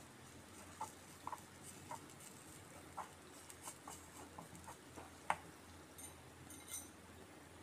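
A small spoon tapping and scraping against a miniature cooking pan while stirring: light, irregular clicks, the loudest a little after five seconds in.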